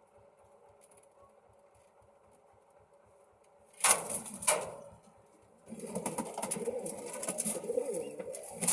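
Domestic pigeons cooing in a loft, starting after two loud, sharp bursts about four seconds in; the cooing continues densely over the last few seconds.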